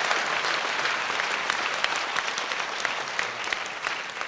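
Large congregation applauding, a dense patter of many hands clapping that slowly fades.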